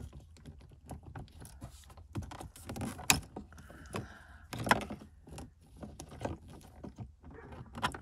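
Irregular clicks, taps and rattles of plastic trim and metal parts as the ignition lock cylinder of a Mercedes W124 is worked loose from the steering column, with two sharper knocks about three and nearly five seconds in.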